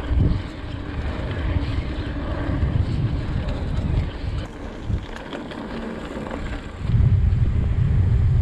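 Wind buffeting the microphone of a mountain biker's POV camera, with the bike's tyres and frame rattling and knocking over a bumpy dirt trail. About seven seconds in, the low wind rumble gets much louder as the bike comes out onto paved ground.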